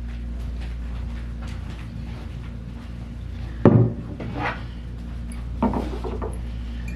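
A sharp knock a little past halfway through, followed by two or three lighter knocks and clatter, over a steady low hum.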